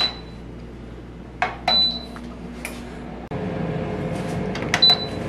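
Kalorik air fryer oven's control panel beeping three times with sharp clicks as its buttons are pressed, then the oven's fan running with a steady whir from about three seconds in.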